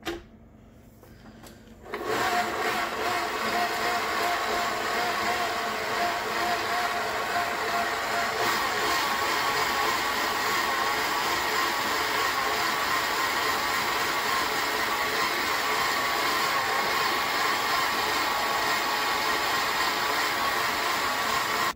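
Electric stand mixer starting up about two seconds in, then running steadily as its flat beater turns sugar and oil in a stainless steel bowl. Its hum changes slightly about eight seconds in.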